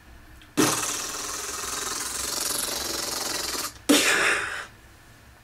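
A rapid drumroll-like rattle for about three seconds, then a sharp crash that dies away within a second, a build-up to a score reveal.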